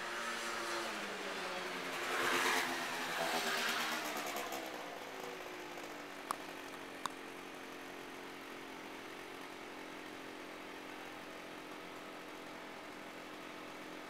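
Motor scooter engine slowing with a falling note and a rush of noise as it pulls up, then idling steadily. Two short clicks about six and seven seconds in.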